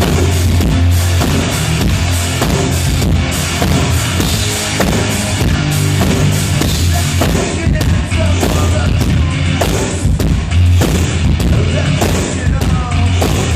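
Rock band playing loud, with a heavy, sustained bass line and hard drum hits under the guitars.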